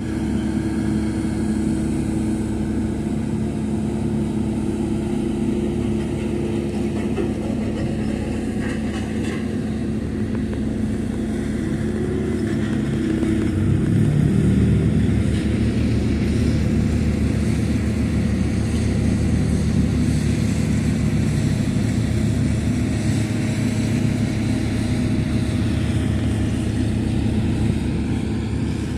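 Diesel engines of road-building machinery, a tandem road roller near by, running steadily. About halfway through a deeper engine note comes in and the sound gets a little louder.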